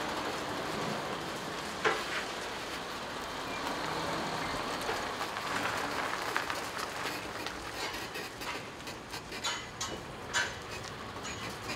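Outdoor work-site noise at a funfair build-up: a steady background hiss with scattered metallic knocks and clicks, a sharp knock about two seconds in and several more toward the end.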